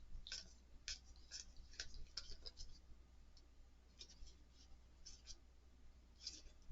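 Faint clicks and light scratching of board-game cards being handled and stacked, many short ticks in the first few seconds, then only a few scattered ones.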